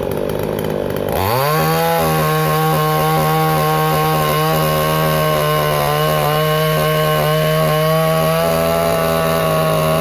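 Chainsaw revved up sharply about a second in and held at full throttle, its engine note steady with a slight wobble as it cuts through wood, then starting to drop back at the very end.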